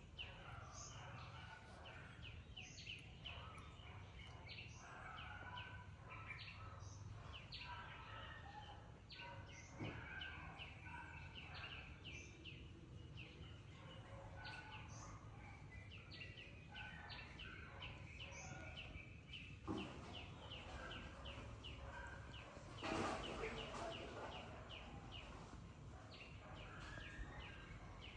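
Faint background of birds chirping in quick, repeated short notes over a low steady hum, with one brief louder noisy burst near the end.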